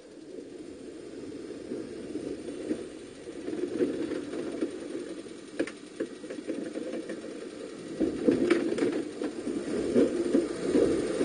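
Small four-wheel-drive off-roader's engine running at low revs, growing steadily louder as it comes down a dirt track toward the microphone, with a few sharp clicks and knocks along the way.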